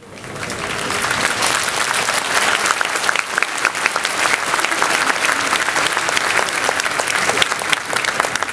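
Audience applauding: a dense patter of many hands clapping that swells over the first second, then holds steady.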